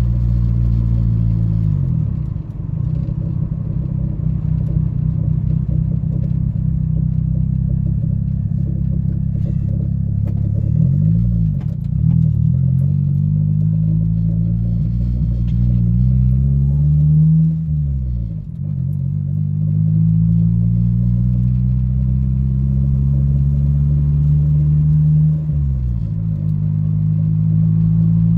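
Turbocharged Honda Civic EG engine heard from inside the cabin while driving. The engine note climbs steadily, then drops and picks up again several times as the car changes speed and gear.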